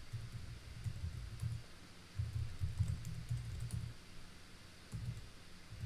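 Typing on a computer keyboard: an irregular run of keystrokes, mostly dull low thuds with faint sharp clicks on top.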